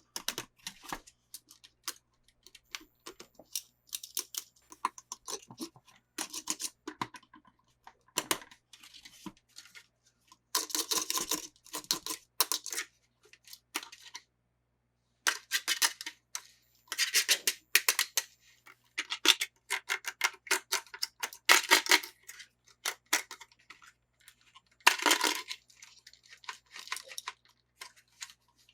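Hands unboxing toys: irregular rustling and scraping of packaging with light plastic clicks, in short bursts with a brief pause about halfway.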